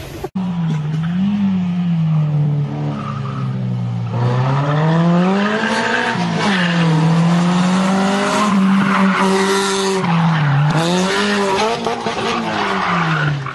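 A rally car's engine revving hard, its pitch repeatedly rising and falling with throttle and gear changes, with tyres squealing as the car slides.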